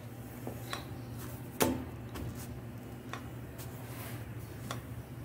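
Light clicks and knocks of a round press weight and utensils on a griddle (comal) where gorditas are cooking, the loudest a single knock about a second and a half in, with a low steady hum underneath.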